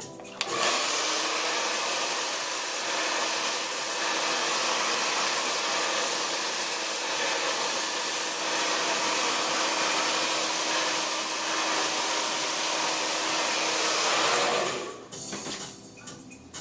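Handheld blow dryer switched on about half a second in, running steadily as a loud rush of air with a constant hum, then switched off about a second and a half before the end.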